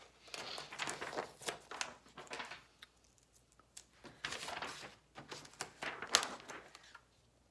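Paper chart being handled, rustling and crinkling in irregular bursts with a short pause about three seconds in.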